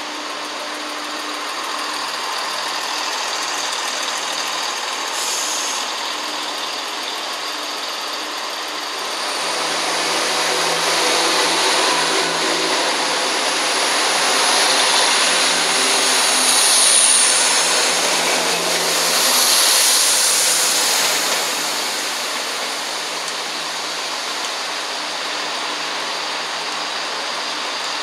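Diesel multiple-unit trains running, with a steady engine hum. About nine seconds in, a train moves close past and the sound swells for over ten seconds, a high squeal rising twice near the middle, then it settles back to the steady hum.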